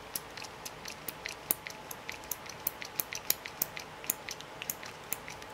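Pump of a face cream bottle pressed again and again, a quick run of short clicks about three or four a second; the pump is being primed and is not yet dispensing cream.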